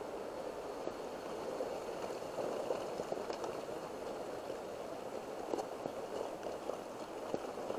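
Heavy rain falling: a steady hiss with a few scattered drop taps.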